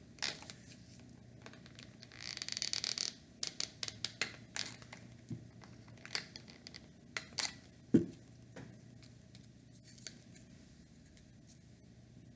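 Small wooden birdhouse pieces being handled and fitted together: a stretch of scraping and rustling about two seconds in, scattered light clicks and taps, and one louder knock about eight seconds in.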